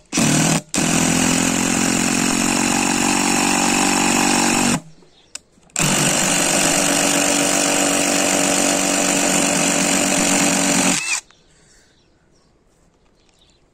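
DeWalt cordless impact driver drilling an 8 mm high-speed-steel twist bit into hard, knotty wood, struggling and its impact mechanism hammering as the bit binds. It runs in two long stretches with a short stop between and stops about eleven seconds in.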